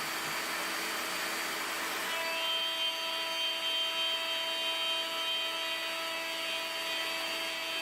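Handheld electric router running at a steady high speed with a constant whine, cutting a mitre slot in melamine-faced chipboard.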